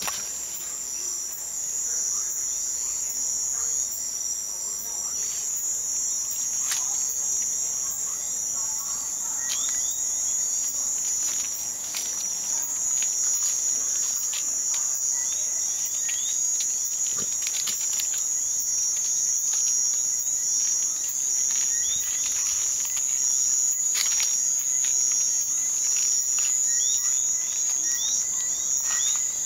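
Steady, high-pitched night chorus of crickets, with short repeated chirps lower down and scattered sharp clicks and taps.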